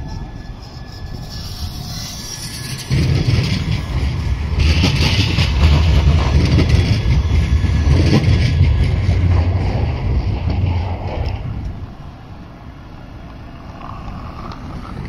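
Siemens Avenio low-floor articulated tram passing close by, its wheels running over the street-embedded rails. A heavy low rumble starts suddenly about three seconds in and fades away about twelve seconds in.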